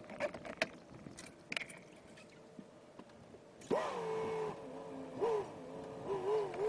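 Mercury Black Max 175 hp V6 two-stroke outboard, quiet at first with a few faint clicks. A little past halfway it is throttled up suddenly, its pitch jumping up and settling. Another short rev follows, and the note wavers near the end.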